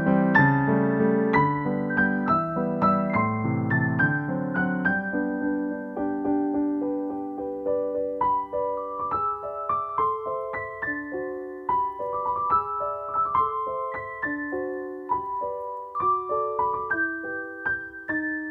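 Background piano music: a gentle melody of single notes, with the lower accompanying chords dropping out about five seconds in.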